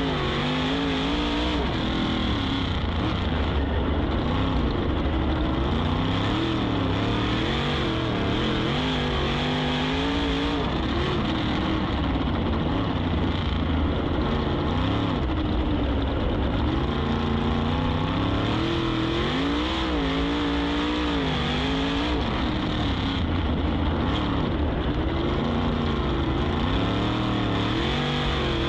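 On-board sound of a 410 sprint car's methanol-burning V8 racing on dirt, the engine pitch falling and rising again and again as the driver lifts for each corner and gets back on the throttle.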